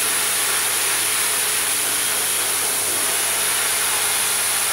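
Dog grooming dryer running steadily, its hose blowing air through a wet dog's coat: a loud, even rushing hiss with a low hum underneath.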